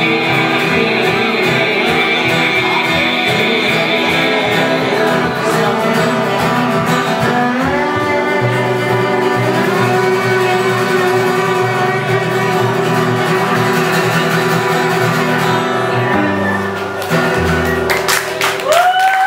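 Live string trio playing: acoustic guitar, upright bass and fiddle, with a man singing. The music settles into long held notes in the second half.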